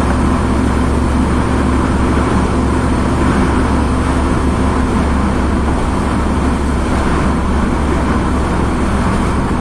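Steady drone of a car moving along a highway, heard from inside the cabin: engine and tyre noise with a constant low hum and no changes in level.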